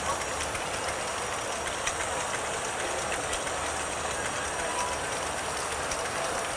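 Electric stand mixer running steadily with its whisk, beating a gingerbread batter of butter, sugar, eggs and molasses. There is crowd chatter behind it.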